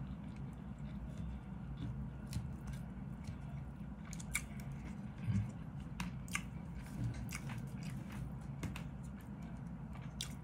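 Chewing and mouth sounds of a man eating rice and ham, with scattered light clicks of a plastic fork and spoon against a plastic food container, over a low steady hum.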